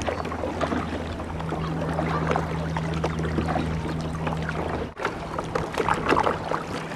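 Water splashing and swishing around a boat under way, over a steady low hum that cuts off abruptly about five seconds in.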